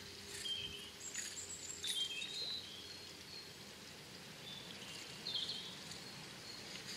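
Small birds chirping, several short high calls now and then, over a faint steady outdoor hiss.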